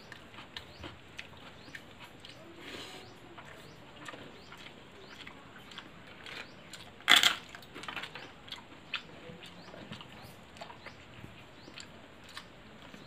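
Close eating sounds of rice and curry eaten by hand: wet chewing, mouth clicks and fingers mixing food on a steel plate. About seven seconds in comes one much louder, sharp noise.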